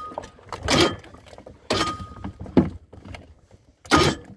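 A series of sharp knocks and thuds, roughly one a second and uneven in strength, the loudest near the end.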